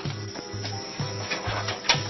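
Background music with a steady, pulsing bass beat.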